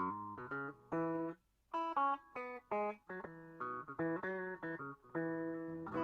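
Background music: a plucked guitar playing a melody of separate notes, each ringing briefly, with short gaps between phrases.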